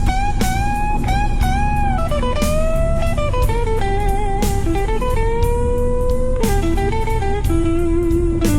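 Instrumental blues music: an electric guitar plays a lead line with bent and wavering notes over a steady beat.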